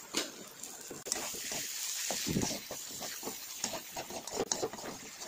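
Okra fry sizzling in a metal kadai, with a perforated steel spatula scraping and knocking against the pan as it is stirred. The sizzle grows louder about a second in.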